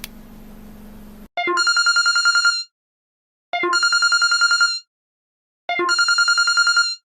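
Electronic telephone ringtone: three rapid trilling rings, each just over a second long, with about a second of silence between them. Before the first ring there is about a second of steady hiss with a low hum.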